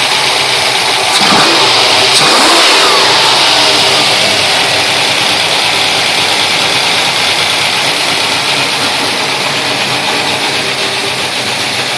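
Pontiac GTO's V8 engine running, revved once about a second in, then falling back to a steady idle. It is running again after repairs from an engine fire.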